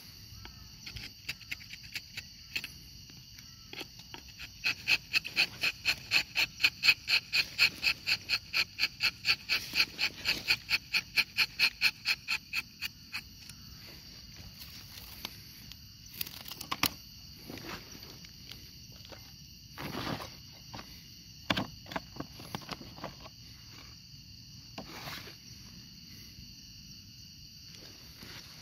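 Steady high insect drone. A fast run of loud high chirps, about four a second, builds and fades over about eight seconds early on. Later there are a few brief scrapes and rustles.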